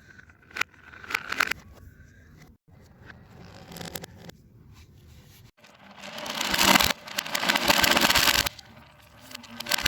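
Fidget toys being handled, with the audio played backwards: scattered sharp clicks and scrapes, then a crackling swell that builds for about two seconds and cuts off sharply.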